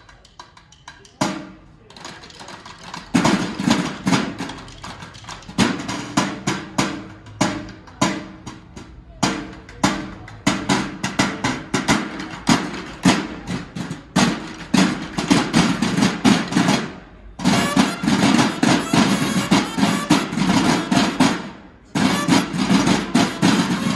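School drum and bugle corps' snare drums playing a rapid march cadence, coming in about a second in. The playing breaks off briefly twice in the second half and picks up again.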